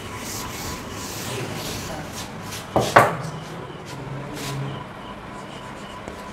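A board duster rubbing across a chalkboard, wiping it clean, then chalk tapping and scratching as writing begins. A brief sharp sound about three seconds in is the loudest moment.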